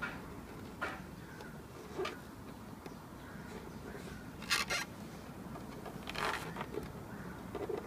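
Old rubber spray coating (Plastidip-type rubber film) being picked and peeled off a car emblem with the fingers: four or five short scratchy peeling and scraping sounds, the loudest about halfway through.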